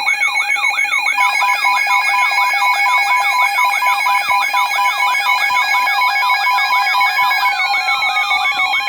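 Several emergency alert tones sounding on top of one another: steady alert tones under a warbling siren-like tone that sweeps up and down about three times a second. Near the end one of the tones slides steadily downward.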